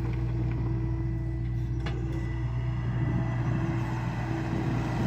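John Deere excavator's diesel engine running steadily, with a single sharp click about two seconds in.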